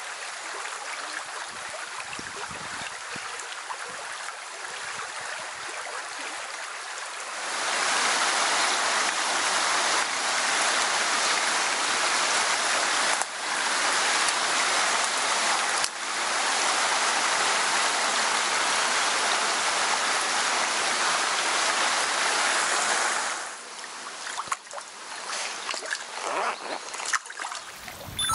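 Small forest stream running over a shallow riffle: a steady rush of water that grows clearly louder about a quarter of the way in, and drops back near the end to a softer, uneven trickle with scattered small sounds.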